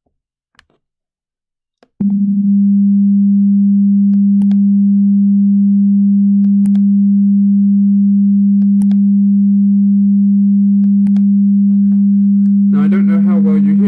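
Steady pure test tone at about 200 Hz from a browser-based Web Audio API demo. It starts abruptly about two seconds in and holds level. Faint mouse clicks come every couple of seconds as the channel-flip button is pressed, and each click switches a faint higher overtone on or off.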